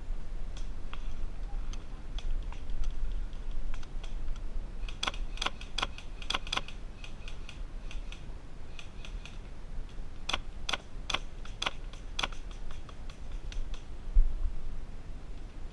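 Airsoft guns firing: sharp clicking shots, scattered singly and then in two quick runs of several shots each, about a third of the way in and again past the middle. A low steady rumble lies underneath.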